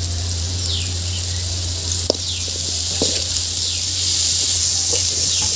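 Chopped vegetables and masala sizzling in an aluminium kadai while a ladle stirs them, with a few clinks of the ladle against the pan. A steady low hum sits under it, and a short falling chirp repeats about once a second.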